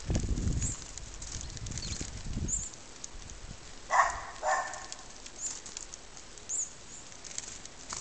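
Wild birds: two short, harsh calls about four seconds in and faint high chirps scattered through, over a low rumble in the first two seconds or so.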